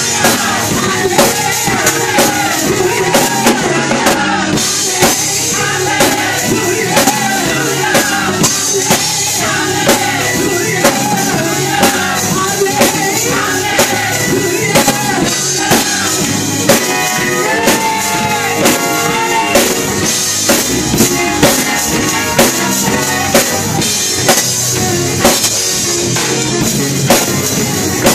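Live church music: a group of singers with a drum kit playing a steady beat.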